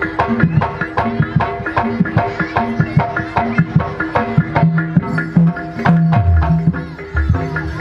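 Live kuda kepang gamelan accompaniment: kendang hand drums playing a fast, dense rhythm over a repeating metallophone melody. About six seconds in, a low drum stroke bends downward in pitch.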